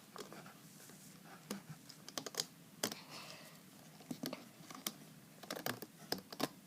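Irregular light clicks and taps from handling a plastic Rainbow Loom, its rubber bands pulled off the pins.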